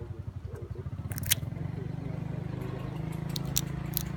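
A macaque biting and chewing food close by, a few sharp crunches about a second in and again near the end, over a steady low hum.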